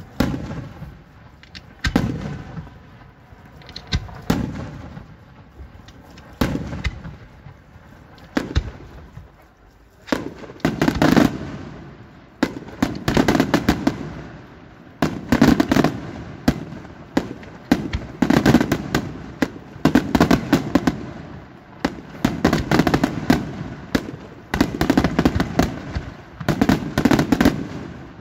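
Daylight aerial firework shells bursting overhead: single bangs about every two seconds at first, then from about ten seconds in, clusters of rapid crackling reports repeating every two seconds or so.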